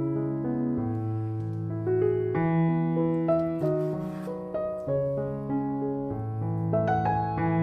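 Background piano music: a melody of notes over held bass notes that change every second or so.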